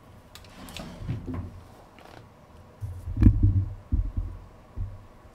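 Low rumble and thumps on the microphone, strongest from about three seconds in, with a light click at the same moment.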